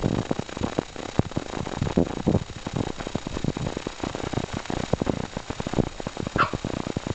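Irregular soft thumps and rustling as a corgi puppy scampers and spins on carpet, with a brief high squeak about six and a half seconds in.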